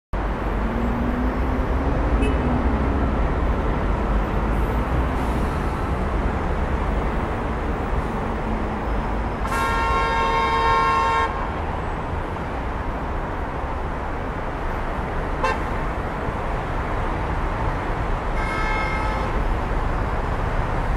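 City street traffic noise with a car horn honking for over a second about halfway through, and a shorter, fainter honk near the end.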